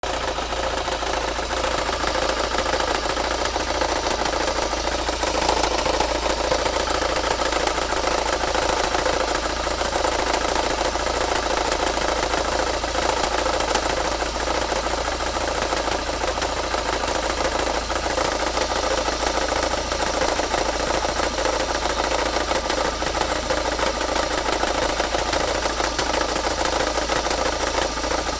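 Volkswagen GTI's 1.8T turbocharged four-cylinder engine running steadily at idle, with a constant noise from the engine bay that the owner suspects may come from a failing alternator.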